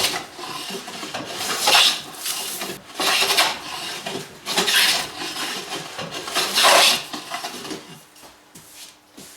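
Hand plane being pushed along a wooden door edge, taking shavings in about five long scraping strokes, each lasting a second or so. It goes quieter near the end.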